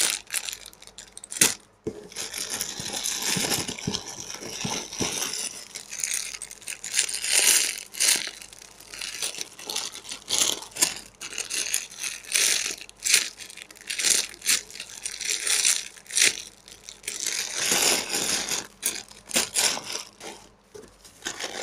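Clear plastic wrappers on squishy toys crinkling and rustling as the toys are picked up and shifted about in a cardboard box, in irregular bursts with sharp clicks and taps.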